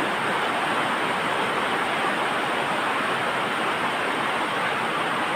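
A steady rushing noise, even and unbroken, with no separate sounds standing out.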